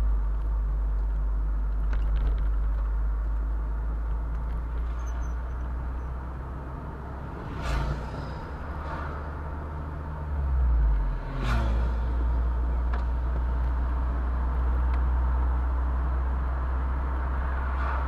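Car driving along a road: steady low engine and road rumble. Two short knocks come a few seconds apart around the middle, and the engine note dips and shifts briefly between them.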